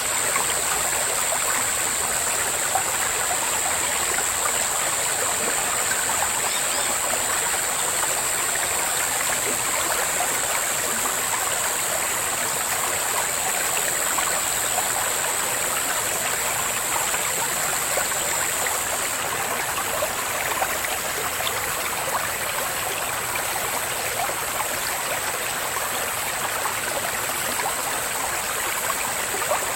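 Babbling brook with water burbling over stones, under a steady high-pitched drone of loud cicadas that eases slightly a little past halfway.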